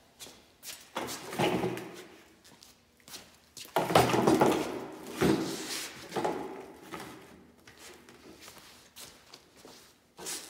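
Lengths of white PVC pipe knocking and clattering together as they are carried and laid on a wooden workbench: a series of hollow knocks, the loudest about four seconds in.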